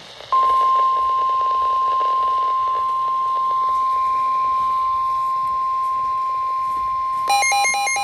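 NOAA Weather Radio 1050 Hz warning alarm tone: one steady, unbroken beep over faint radio hiss, sounding ahead of a severe thunderstorm warning. About seven seconds in, a second electronic alarm starts over it, a buzzy warble that flips rapidly between two pitches.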